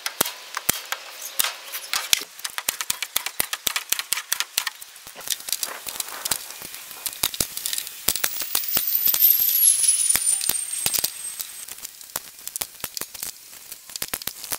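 Hand staple gun driving staples through quarter-inch plywood into a wooden frame: a rapid, irregular run of sharp clacks. A thin high tone slides downward about eight seconds in.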